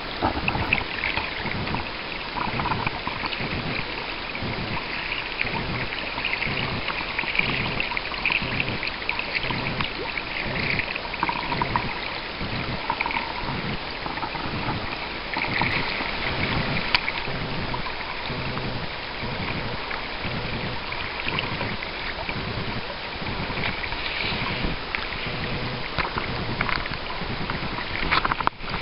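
Water rushing and splashing along the hull of a moving sea kayak, with a regular low pulsing about twice a second.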